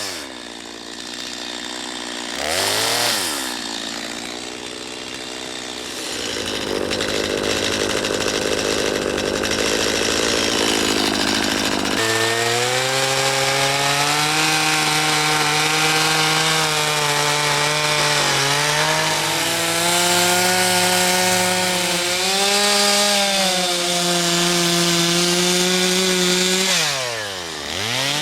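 Two-stroke chainsaw carving a white oak stump. It drops to idle at the start and is revved briefly about 3 seconds in. From about halfway it runs at high revs with the pitch wavering as the chain cuts into the wood, then drops back near the end and revs up again.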